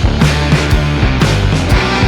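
Rock background music with a steady drum beat, distorted guitar and bass.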